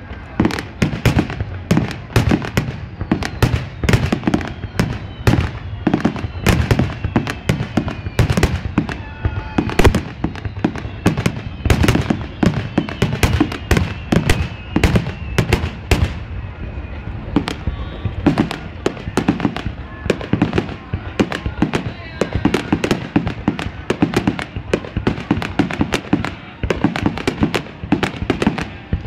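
Aerial firework shells bursting one after another in a dense, continuous barrage of sharp booms, with gliding whistling tones among them in the first half.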